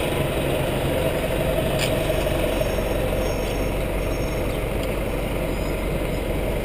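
City bus engine running close by, a steady low rumble over street traffic noise.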